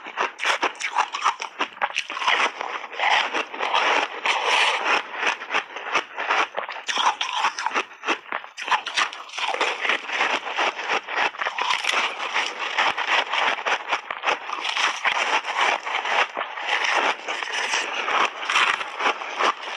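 Close-miked crunching and chewing of ice coated in passionfruit pulp: dense, rapid crackles and crunches with no let-up.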